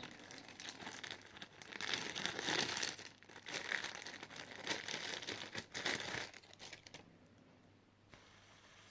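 Packaging crinkling as it is handled during the unboxing of fidget spinners, in uneven bursts that stop about six and a half seconds in.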